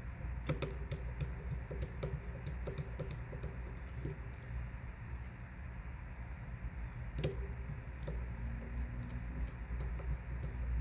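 Irregular small clicks and taps of a precision screwdriver and tiny screws as the screws go back into a Samsung S8 Plus's internal plates, over a steady low hum.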